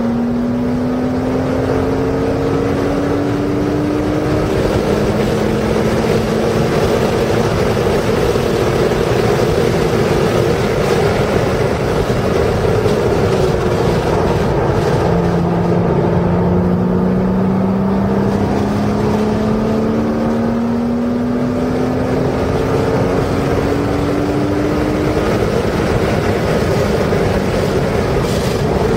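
Porsche engine heard from inside the car on a race track, pulling hard with its pitch rising as it accelerates, dropping back about halfway through as it slows for a corner, then climbing again. Constant wind and tyre noise runs underneath.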